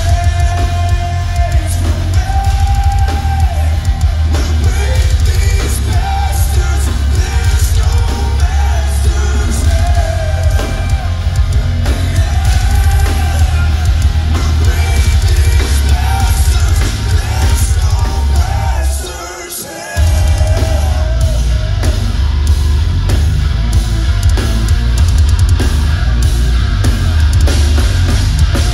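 Heavy metal band playing live: drums, bass and distorted guitars under a singer's lead vocals, heard from the audience with a heavy, booming low end. About nineteen seconds in the band cuts out for about a second, then comes back in full.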